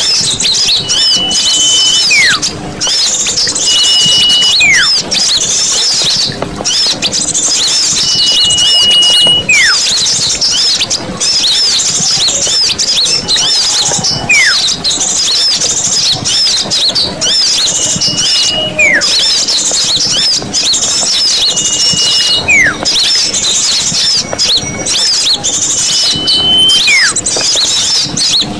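Bird-lure recording of many small birds chattering and chirping densely and without pause. Every few seconds a clear whistle cuts through, held on one high note and then sliding steeply down.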